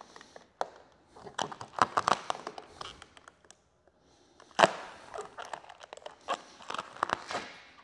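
Clear paint protection film, softened with hot water, being peeled by hand off painted truck bodywork, crackling and crinkling as it lifts from the paint and bunches in the fingers. The film comes away cleanly without leaving adhesive. There is a short pause a little past halfway, then one sharp crack, the loudest sound here.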